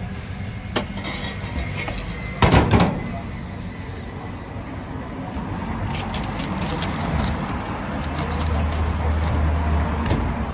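Kebab-shop counter noise: a short, loud clatter about two and a half seconds in, then crisp rustling of wrapping paper as a doner wrap is rolled up in it, over a busy background with a low rumble near the end.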